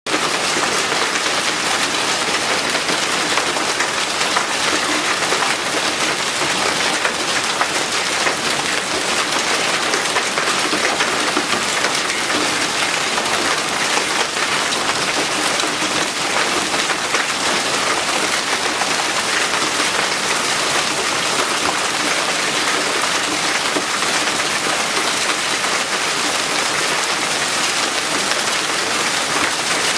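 Hail falling hard and steadily, a dense, even patter of countless small hits on hard surfaces.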